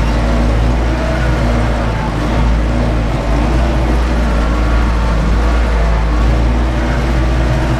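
Ursus 914 tractor's diesel engine running steadily under heavy load, heard inside the cab, as it pulls a disc harrow through heavy fallow ground.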